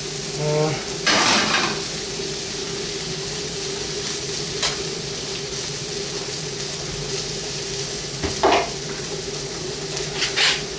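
Liver searing in a frying pan, sizzling steadily, with a few clinks and knocks of pans and utensils.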